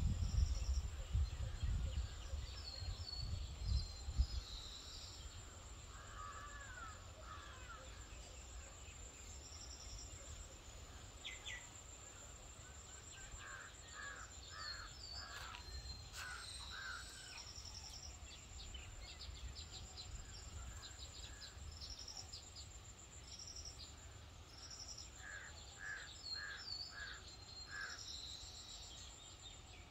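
Crows cawing in short series of four or five calls, with smaller birds chirping and a steady high insect drone underneath. There is a low rumble on the microphone in the first few seconds.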